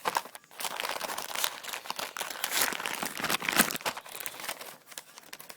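Plastic packaging being crinkled and torn open by hand: a dense, irregular crackling that goes on throughout.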